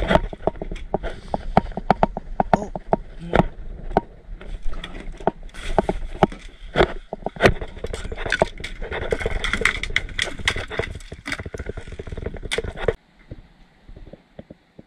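Irregular knocks and clatter of fishing gear being handled aboard a plastic kayak, cutting off suddenly near the end.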